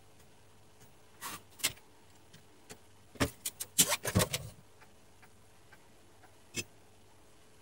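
Handling noise from the television's circuit board being turned over: scattered sharp clicks and clattering knocks, with a burst of several in quick succession about halfway through.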